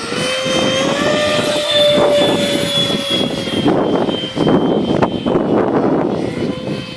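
Electric ducted-fan motor of a radio-controlled F-16 model jet whining in flight, its pitch rising slightly about a second in and then slowly falling as the throttle eases, over a loud rushing noise.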